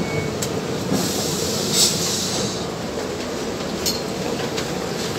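KRL electric commuter train standing at the platform with its doors open, a steady running noise with a short burst of air hiss about two seconds in and a few sharp clicks.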